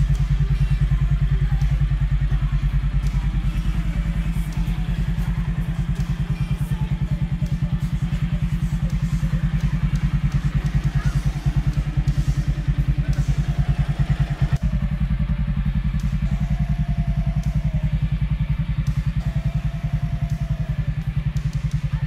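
Engine of a Chinese-made Honda CBR-replica 150 cc motorcycle idling steadily, its exhaust giving an even pulse.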